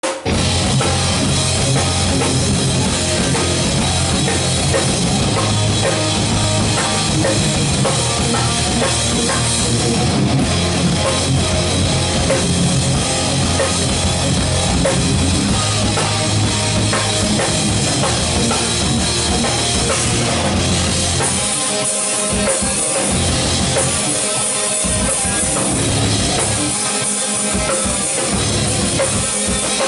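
Live heavy metal band playing loud, with distorted electric guitars over a drum kit. About two-thirds of the way in, the band switches to a stop-start riff with short breaks.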